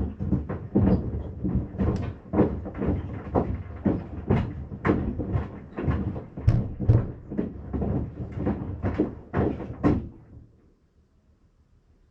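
Sandals knocking and thudding against the drum of a Maytag washing machine as it turns the load, about two knocks a second. It starts suddenly and stops about ten seconds in.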